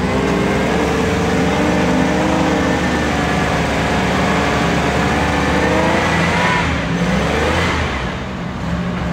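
Off-road trial car's engine revving hard under load as the car climbs over a rock ledge, its pitch rising slowly for about six seconds and then dropping away about seven seconds in.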